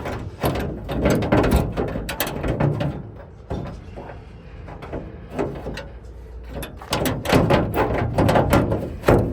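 Metal clicking and rattling of lock hardware being worked by hand inside a van's side door, in two busy bouts with a quieter stretch between.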